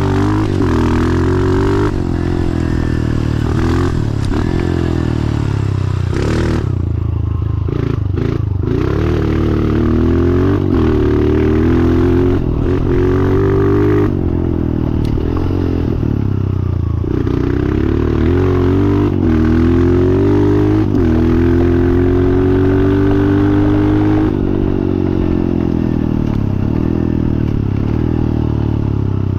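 2014 Honda CRF125F's single-cylinder four-stroke engine, fitted with a full FMF exhaust, being ridden hard on a dirt track. The pitch climbs and drops again and again as the throttle is worked and the gears change, with a longer steady pull in the second half and the bike's chassis rattling over the ground.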